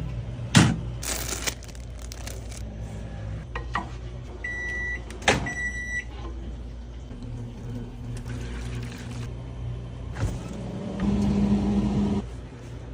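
Steady electric hum with a few clicks and handling rustles. About five seconds in, an appliance gives two short electronic beeps, and near the end a louder steady buzzing hum runs for about a second.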